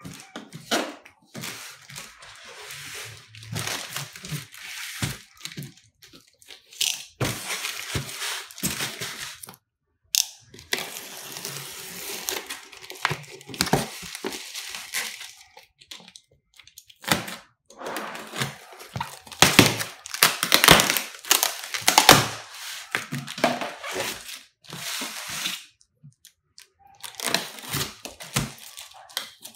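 Plastic wrap and packing tape being cut and torn off a cardboard shipping box, with crinkling, tearing and the creak and scrape of a polystyrene foam liner being pried apart. It comes in irregular spells with short pauses and is loudest about two-thirds of the way through.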